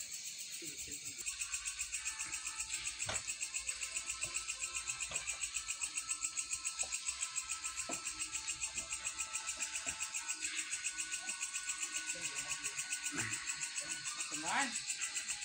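A night-time chorus of insects chirping in a steady fast pulse, about seven pulses a second, with a few short wooden knocks of planks being handled and stacked.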